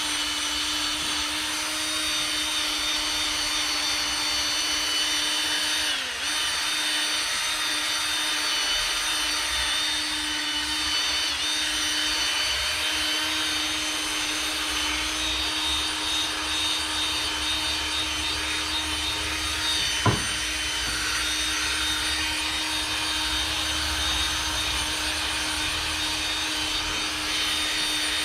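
Electric drill spinning a polishing pad against a plastic headlight lens, running at a steady speed. It briefly slows about six seconds in, and there is one sharp click about twenty seconds in.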